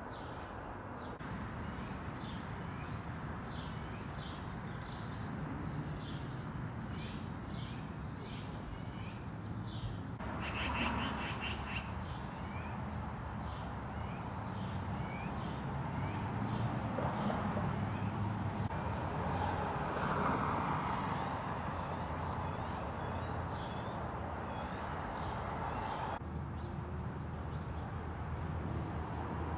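Outdoor ambience: small birds chirping in a quick repeating pattern over a steady low rumble of distant traffic, with a brief louder call about ten seconds in.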